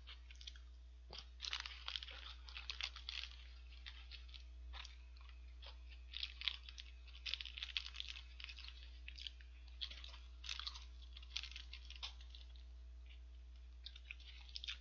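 A person chewing a hamburger close to the microphone: quiet, irregular clicking and crackling mouth noises, with a faint steady electrical hum underneath.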